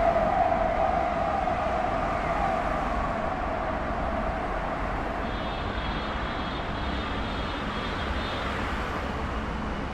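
Traffic running through a highway tunnel, the sound echoing off the tunnel walls. A passing vehicle's wavering, siren-like horn tone slides down in pitch and fades over the first few seconds. Then a steady traffic rumble goes on, with a faint high whine joining about halfway.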